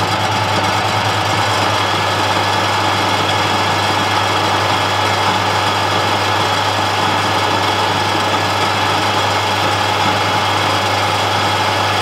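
Metal lathe running under power feed while a turning tool takes a 2 mm deep cut in mild steel: a steady motor and drive hum with the even hiss of the cut. The cut runs smoothly without chatter.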